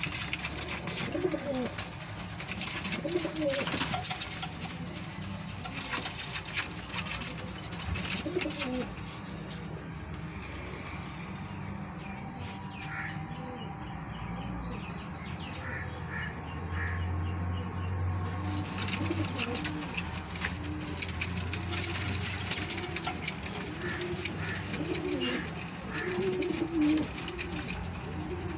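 Domestic pigeons cooing again and again, short low arching calls that overlap and come in runs throughout.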